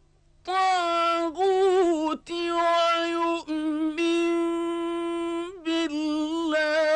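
Male Quran reciter chanting in the melodic mujawwad style, drawing out long ornamented notes with a wavering vibrato. The voice comes in after a brief breath pause at the start, with one long steady held note about halfway through.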